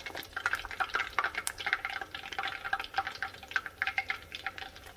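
Batter-coated chicken pieces deep-frying in hot oil: a steady, dense crackle of many small pops.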